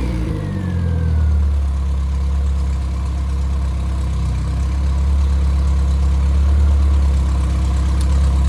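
Rebuilt Triumph Spitfire 1500 inline-four engine, fitted with flat-top pistons and a 270-duration cam, settling back from a rev over about the first second and then idling steadily. It is running very smooth, as a balanced engine should.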